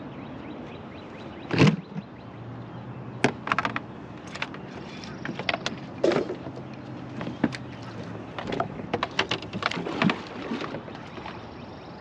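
Irregular knocks, clicks and rattles of a freshly landed blue catfish and fishing gear being handled in a boat, the loudest thump about a second and a half in. A steady low motor hum runs underneath.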